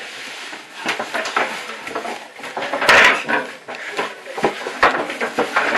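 Irregular knocks, bumps and scraping against wooden panels as someone crawls through a cramped wooden maze, with one louder knock about three seconds in.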